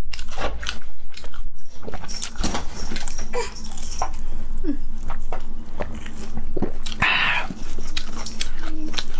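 Close-miked crunching and chewing of crispy fried cutlets coated in a sticky glaze, a run of sharp crackles from bites and chewing, with a louder crunch about seven seconds in.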